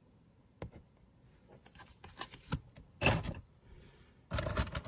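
Metal costume jewelry clinking and rattling in a wooden box as a hand rummages through the pile. Scattered light clicks build to a dense clatter near the end.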